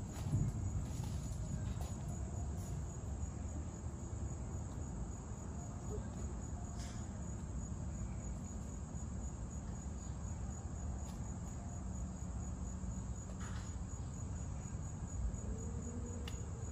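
Steady high-pitched insect trill, like crickets, over a continuous low rumble.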